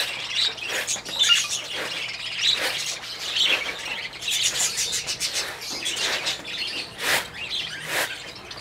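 A flock of caged lovebirds chirping and chattering, with many short, high, overlapping chirps.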